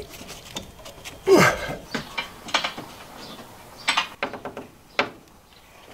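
Scattered clicks and rattles of hand work on wiring and copper tubing, with a short sound falling in pitch about a second in.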